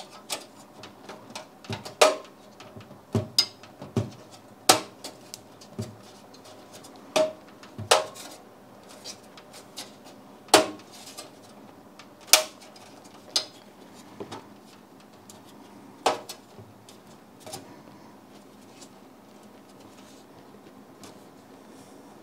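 Thin sheet-metal I/O shield being pressed and snapped into the rear opening of a steel PC case: a dozen or so sharp, irregularly spaced metallic clicks and clanks, which die away in the last few seconds.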